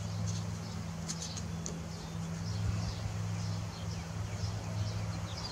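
A steady low hum, with faint bird chirps over it.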